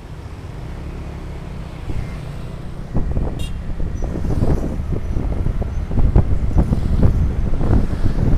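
Wind buffeting the microphone over the low rumble of road and vehicle noise, the buffeting getting stronger and gustier from about three seconds in.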